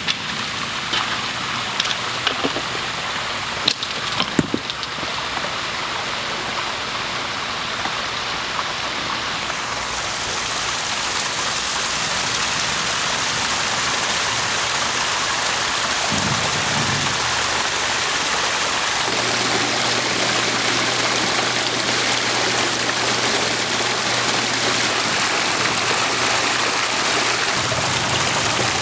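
Water rushing and splashing down a large multi-cascade stone waterfall into a pond, just switched on; the flow builds, getting louder from about ten seconds in. A few sharp clicks in the first few seconds.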